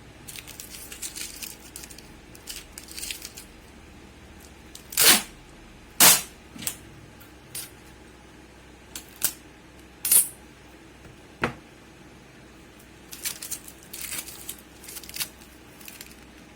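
Small hard parts and tools being handled on a workbench during electronics repair: a series of sharp clicks and clacks, the loudest two about five and six seconds in, with stretches of light scraping and rustling near the start and again near the end.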